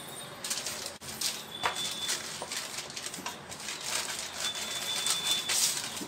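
Thin plastic sheets crinkling and rustling as hands smooth them and a wooden rolling pin is rolled back and forth over them, flattening the date mixture underneath. The crackle comes in irregular bursts.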